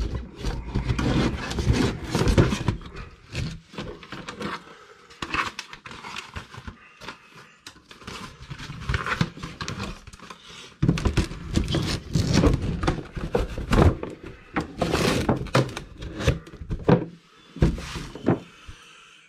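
Packaging and parts being handled on a workbench: irregular thunks, knocks and clicks with rustling, in uneven bursts, quieter for a spell near the middle.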